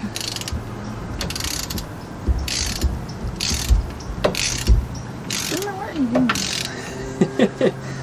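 Socket ratchet wrench clicking in short runs on its return strokes, one run about every half second to second, as the rear caliper bracket bolts on a VW Karmann Ghia are run down tight.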